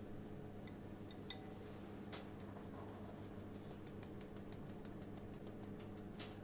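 A stainless mesh sieve tapped in a quick, even rhythm, about five or six light ticks a second, sifting flour and cocoa powder through into a glass bowl. A single sharp clink comes about a second in.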